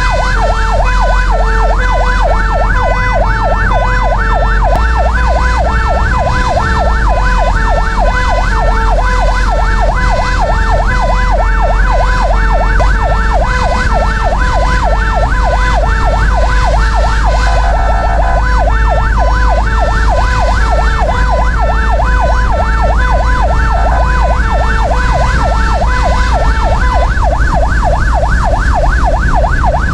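Fire engine's siren sounding continuously in a fast rising-and-falling warble that repeats a few times a second, heard from inside the truck's cab over the low running of its engine.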